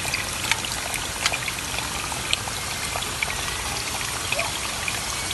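Spring water trickling and pouring steadily into a shallow pool, with many small drips and splashes.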